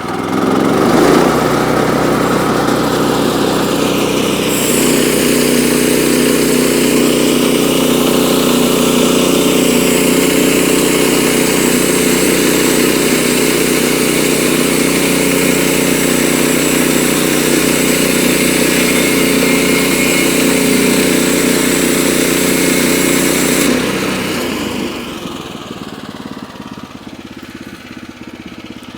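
Gas engine of a Woodland Mills portable band sawmill revving up about a second in and running steadily at full throttle as the band blade cuts through a jack pine log, with a hissing cut sound over the engine for most of the pass. Near the end the cut sound stops and the engine drops back to idle.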